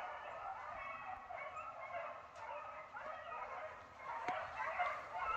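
Hunting dogs baying and barking, several calls overlapping without a break, as the dogs work a rabbit's trail.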